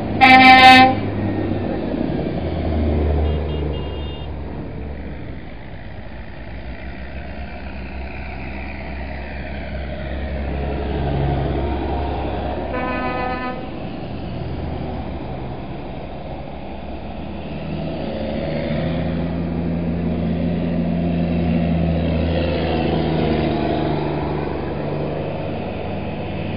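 Diesel tractor engines passing one after another, the drone swelling and fading as each goes by. A loud horn blast of just under a second sounds right at the start, and a second, weaker horn toot about halfway through.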